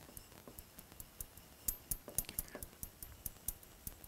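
Pen tip tapping and dragging on the glass of an interactive display board during handwriting: a faint, irregular run of sharp little ticks, several a second.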